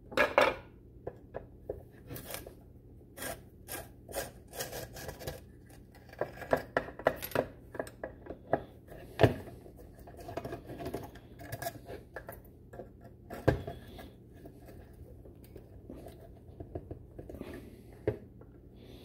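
Screwdriver working the screws that hold the ignition coil in a GM large-cap HEI distributor cap: irregular clicks, taps and scraping of metal on metal and on the plastic cap, with a few louder knocks as the cap and tools are moved on the bench. The screw heads are rounded off, so the screwdriver slips and scrapes.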